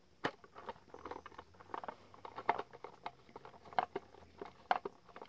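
Hand screwdriver turning a screw into the hollow black plastic body of an animatronic Santa, with irregular small clicks and scrapes of the driver and the handled plastic, a few a second.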